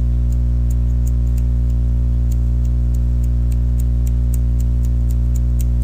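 Steady electrical mains hum on the recording, with faint, evenly spaced ticks throughout.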